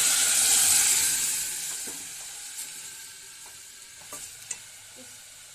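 Cooked urad dal with bathua greens poured from a pressure cooker into hot mustard-oil tempering in a steel pot: a loud sizzle that dies away over about two seconds into a quieter sizzle, with a few light clicks against the pot near the end.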